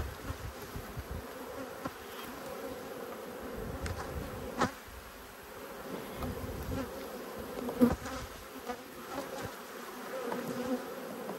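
A mass of honeybees buzzing around an open hive, a steady hum from a disturbed colony with many bees in the air. Two sharp clicks of the hive tool knocking the wooden frames, about four and a half and eight seconds in.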